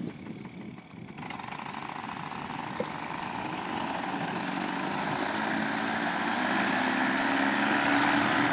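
Paramotor engine and propeller running and being opened up for a forward launch, growing steadily louder.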